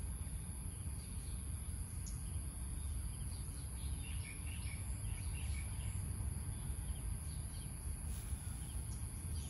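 Outdoor ambience: a steady high-pitched insect drone, with birds chirping faintly from about four seconds in, over a low steady rumble.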